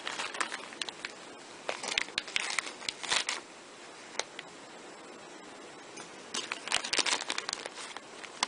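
A small plastic bag crinkling and rustling in irregular bursts as a lock of hair is handled and put back into it, with a quieter lull of a few seconds in the middle.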